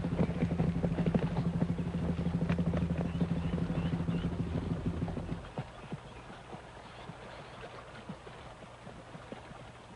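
Rapid clattering over a steady low hum. About five and a half seconds in, the hum drops to a lower, fainter one and the clatter thins to scattered clicks.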